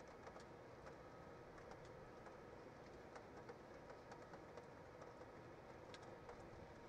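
Faint rain: scattered drops ticking irregularly on the nest-box camera over a steady hiss.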